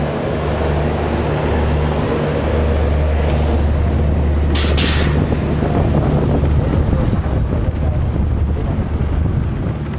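A two-wheeler's small engine running steadily while riding, with wind buffeting the microphone. A brief hiss comes about halfway through.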